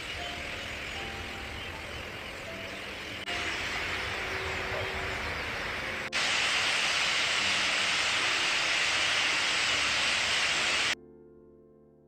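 A steady outdoor rushing noise that gets louder in two sudden steps and cuts off abruptly near the end, with soft piano music underneath.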